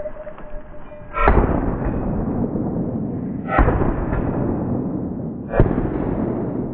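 Three deep booms about two seconds apart, each fading out slowly over a couple of seconds.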